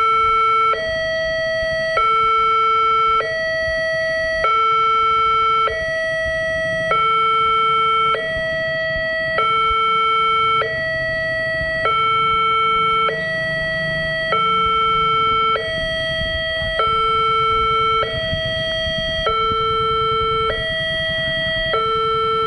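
Electronic two-tone alarm of a Wantech railway level-crossing signal, played through a horn loudspeaker on the crossing post. A lower and a higher tone alternate steadily, each held about 1.2 seconds. This is the warning that a train is approaching while the crossing barrier is down.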